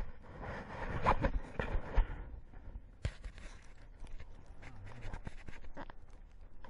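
Footsteps on loose rocks and stony ground: a string of short crunches, knocks and scrapes. A rough rushing noise, loudest in the first two seconds, sits under them.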